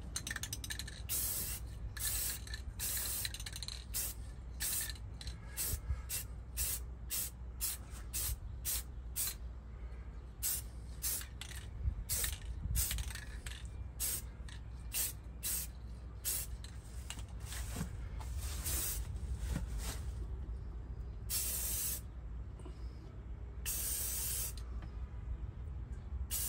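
Aerosol spray-paint can of primer being sprayed in many short hissing bursts, about two a second, then a few longer sprays later on.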